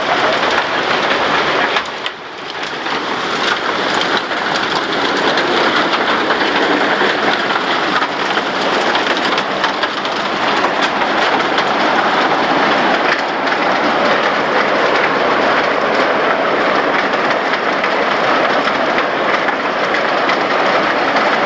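Ore grinding mill (ball mill) running: a loud, steady rushing noise of ore and steel grinding balls tumbling inside the rotating drum, dipping briefly about two seconds in.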